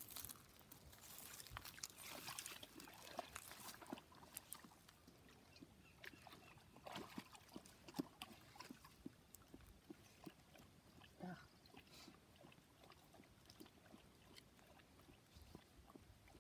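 Faint wet squelches, small splashes and clicks as soaked pink salmon skins are lifted and handled in a stainless steel bowl of tanning solution, with one sharper tick about halfway through.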